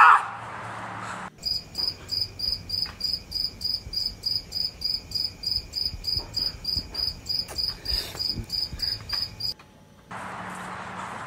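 A man's yell cuts off at the very start. About a second in, a cricket begins chirping at an even pace, about three to four chirps a second, and stops suddenly near the end.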